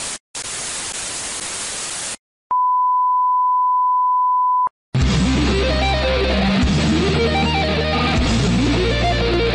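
Analogue TV static hiss for about two seconds, then a brief silence and a steady colour-bar test-tone beep for about two seconds, which cuts straight into loud rock music with electric guitar.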